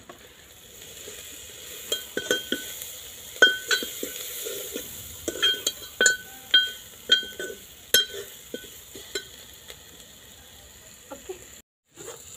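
Steel spoon stirring chopped green chillies in a metal pot, clinking against the pot about a dozen times with a bright ringing note, over a faint steady sizzle.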